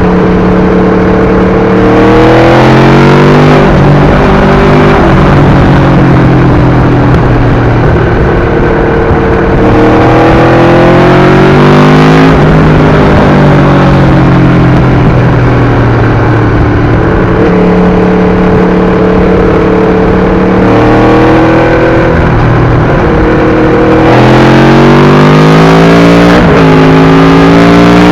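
Aprilia RSV4's 1000 cc V4 engine through an SC-Project exhaust, accelerating: the engine note climbs and drops sharply at each upshift, in several pulls, with steadier cruising stretches between them.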